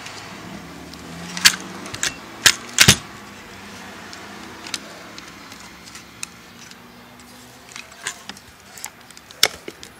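Metal clicks and clacks from the back of a Graflex Speed Graphic press camera as its frame and slides are worked by hand. A run of loud sharp clacks comes in the first three seconds, then lighter scattered clicks, with one more sharp click near the end.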